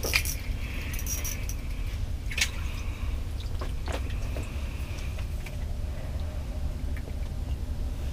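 A steady low rumble, with a few sharp clicks and light jangling rattles, loudest near the start and about two and a half seconds in.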